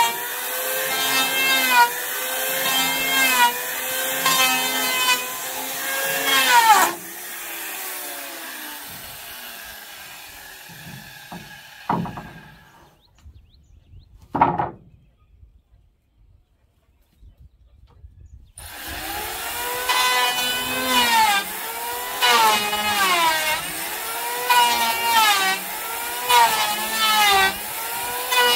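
Electric hand planer running and shaving a wooden plank, its motor pitch dipping and recovering with each pass. About seven seconds in it is switched off and winds down. After a quiet pause with two short knocks, it starts again near eighteen seconds and resumes planing in repeated passes.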